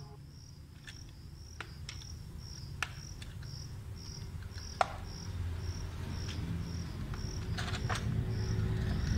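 A cricket chirping in an even rhythm, about two chirps a second, with sharp clicks from the plastic toy excavator and its rubber track being handled. A low rumble grows louder through the second half.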